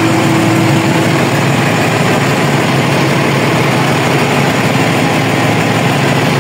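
Deutz AX 4.120 tractor's diesel engine running steadily, heard from inside the cab, with a faint steady tone that fades out about a second in.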